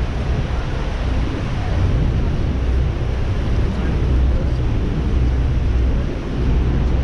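Steady loud rushing noise with a deep rumble: wind and falling water around a tour boat at Niagara Falls, with wind buffeting the microphone.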